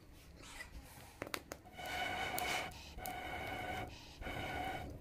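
Breath blown through a metal blow pipe into a wood cooking fire to make it burn up: three puffs of about a second each, from about two seconds in. Each puff is a rush of air carrying a steady whistle.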